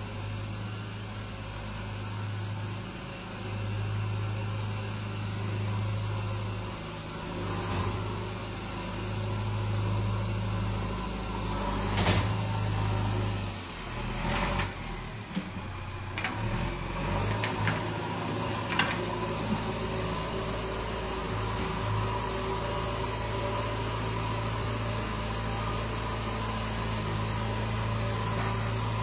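JCB backhoe loader's diesel engine running at work, a steady low hum that swells and eases as the machine takes load. A few sharp knocks come in the middle stretch.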